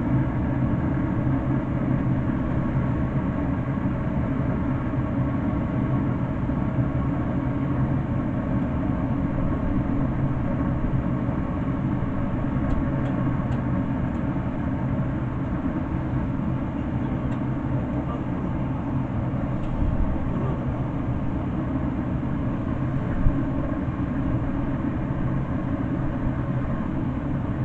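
Steady low hum with a rushing noise from a running pellet smoker-grill, unchanging throughout.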